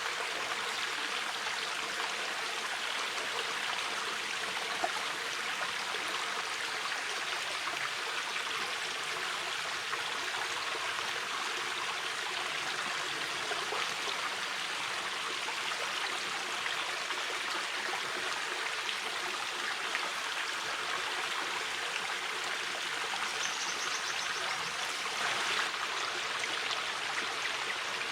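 A shallow river flowing steadily, an even rushing and gurgling of water over stones, with a faint click about five seconds in.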